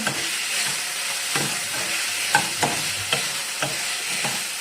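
Chopped onions, tomato and green chilli frying in coconut oil in a pan, sizzling steadily, with a stirring utensil knocking and scraping against the pan several times.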